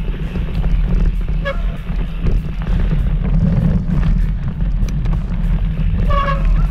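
Wind buffeting an action camera's microphone on a moving mountain bike, a steady low rumble with scattered rattling clicks from the bike on the trail. A brief pitched squeak or call comes about a second and a half in, and another near the end.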